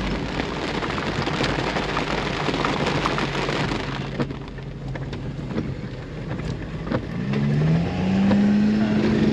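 Rain falling on a Jeep's leaky top, heard from inside the cabin as a dense hiss with many small ticks, over a running engine. From about seven seconds in, an engine's pitch rises steadily as a vehicle accelerates.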